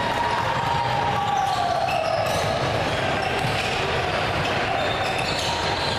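Live basketball play on a hardwood gym floor: the ball bouncing and sneakers squeaking as players run, over the steady noise of the hall.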